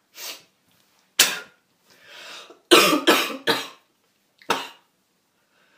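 A person coughing in short, hard bursts, with three or four coming in quick succession about halfway through.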